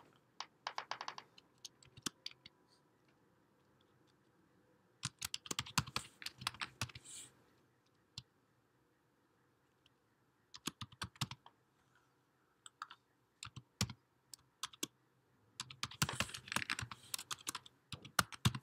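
Computer keyboard typing: several short runs of keystrokes separated by pauses of a few seconds.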